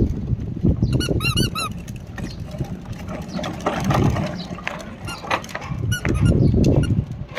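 Plastic wheels of a child's ride-on push car rolling over rough ground with a steady low rumble and rattle. About a second in comes a quick run of four or five short high squeaks.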